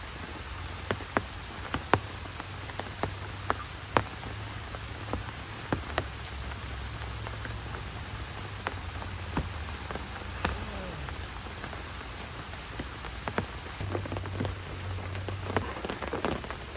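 Steady rain falling, with single heavy drops landing close by as sharp, irregular taps.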